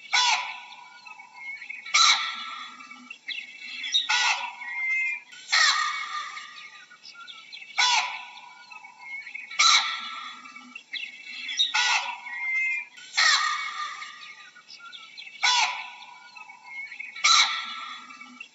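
Baboon giving loud, harsh calls over and over, one about every two seconds.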